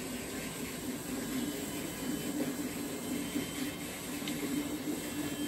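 A steady machine hum at one pitch under a hiss, with a couple of faint ticks about four seconds in.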